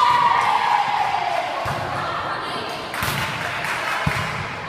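Volleyball rally in a gymnasium: a drawn-out shout falling in pitch at the start, then three thuds of the ball being struck, among players' voices.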